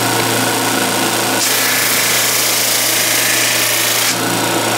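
Flatmaster drum sander running with a steady motor hum. About a second and a half in, a hiss rises as a board is fed across the spinning abrasive drum. It lasts about three seconds and falls away as the board clears the drum.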